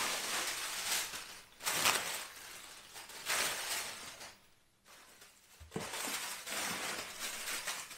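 Plastic packing sheet and bubble wrap crinkling and rustling as they are pulled and handled, in several bursts with short pauses between.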